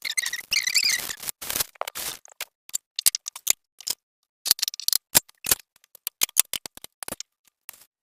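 Irregular clicks, knocks and short scrapes of kitchen utensils and cookware being handled, with a high squeak in the first second.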